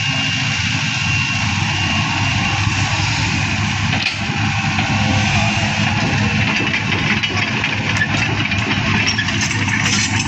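Heavy machine's engine running steadily at a constant speed, with some light clattering in the last couple of seconds.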